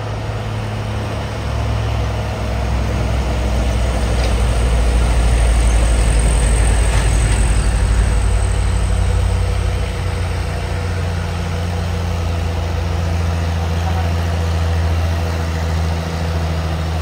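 Heavy diesel truck engines labouring up a steep grade, a deep steady drone that grows louder over the first few seconds and eases back slightly about ten seconds in.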